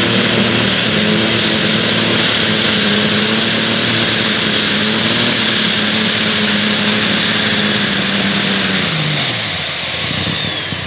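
Light super stock pulling tractor's engine running at full throttle under load as it drags the weight-transfer sled, with a high whistle riding over it. About nine seconds in, the engine and the whistle fall in pitch together as the throttle comes off at the end of the pull.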